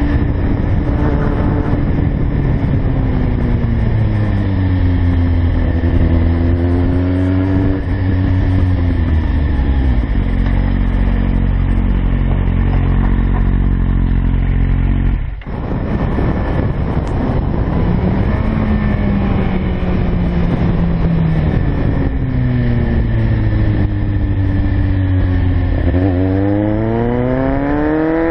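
Kawasaki Z750's inline-four engine under way, revs falling and rising again and again with the throttle, then climbing sharply near the end. A short dip in the sound comes about halfway through.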